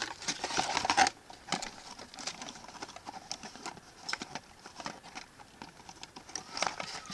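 Plastic toy packaging crinkling and rustling for about a second as an action figure is pulled out of it, then scattered light plastic clicks and taps as the figure and packaging are handled.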